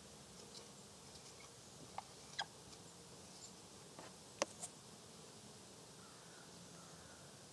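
Faint dry-erase marker strokes on a small whiteboard, with a few short sharp clicks, the loudest about four and a half seconds in, over a quiet background.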